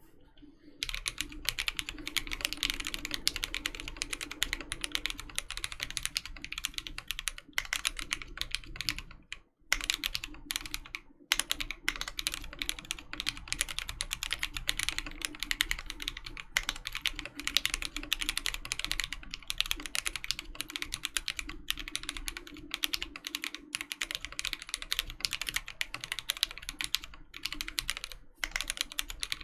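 Continuous fast typing on a Voice65 gasket-mount mechanical keyboard with Krytox-lubed Alpaca linear switches, a PE plate, foam inside, and Infinikey Hive keycaps. The keystrokes come in a steady run of clacks, broken by two brief pauses about ten seconds in.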